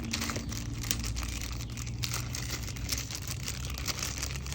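Small parts being handled: light rustling and scattered small clicks, over a steady low hum.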